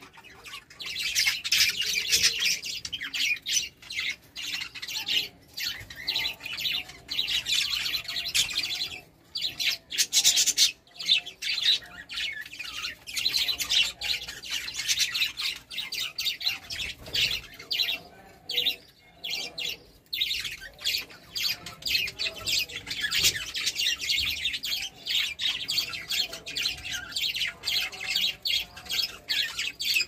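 Several budgerigars chattering and warbling, a dense run of quick chirps and clicks that thins briefly a few times.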